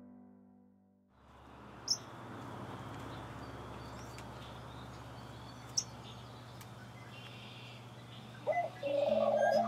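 Outdoor ambience with wild birds calling: a couple of brief high chirps, then louder, warbling calls near the end, over a steady low hum and a light noise haze.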